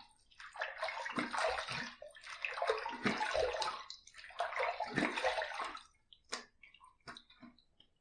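Water splashed onto the face from cupped hands at a sink, rinsing off shaving lather after the last razor pass. There are three splashing spells of about two seconds each, then a few small drips and taps near the end.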